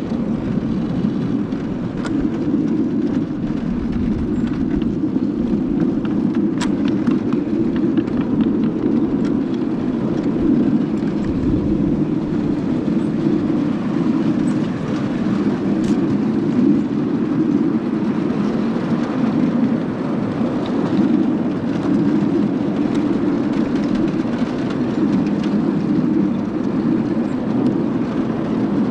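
Miniature railway train running along its track: a steady rumble with a few sharp clicks.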